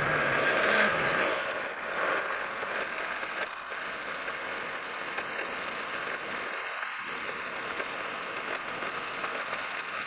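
Metal lathe running at slowed spindle speed while a 5/8-inch twist drill in the tailstock chuck bores into the spinning workpiece, a steady machining hiss and hum as chips curl off. A single sharp click about three and a half seconds in.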